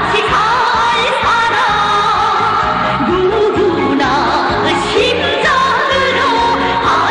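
Music with a singing voice, sung with vibrato over a steady bass beat.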